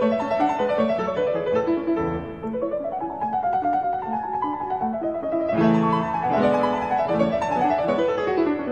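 Background piano music, with runs of notes rising and falling.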